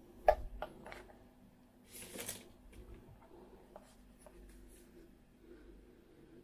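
Plastic handling sounds as the battery pack is pulled out of a Fimi X8 SE drone and turned over in the hands: a sharp click about a quarter second in, a few lighter clicks, and a short scraping slide about two seconds in, then faint rustling.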